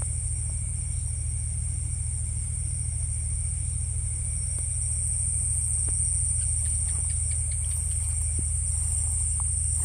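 Night insects, crickets among them, chirring in a steady high-pitched chorus over a constant low hum.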